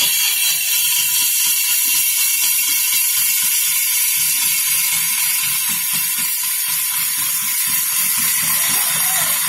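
Wood lathe running with a cutting tool held against the spinning wood: a steady, high-pitched scraping hiss over a faint even whine.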